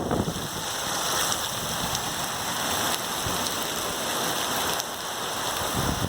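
Steady rain falling in a continuous hiss.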